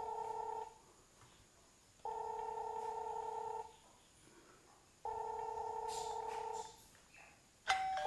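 Yoosee smart doorbell call ringing: a buzzy electronic ring tone repeating in bursts of about a second and a half with equal gaps, three times, the alert that a visitor has pressed the bell and the call is waiting to be answered. Just before the end a different, higher ring starts.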